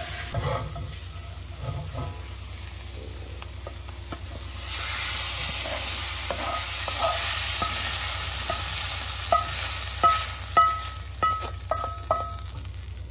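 Sautéed vegetables sizzling in a hot cast-iron skillet as a wooden spoon scrapes them out onto a glass plate. The sizzle swells about halfway through, and the second half carries a run of scrapes, light knocks and short ringing clinks from the spoon and pan against the plate.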